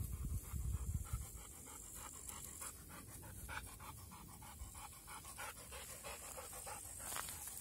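A Rottweiler panting with its mouth open: quick, even breaths, about three a second. A low rumble on the microphone in the first second or so.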